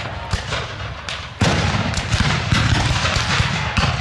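Black-powder gunfire from a re-enactment battle: scattered musket shots crack throughout, and a heavy boom about a second and a half in rumbles on afterwards.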